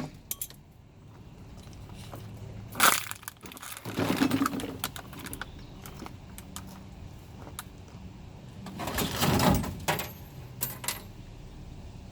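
Intermittent clatters and rattles of hard objects being handled, with a longer rattling stretch about nine seconds in and a few light clicks after it.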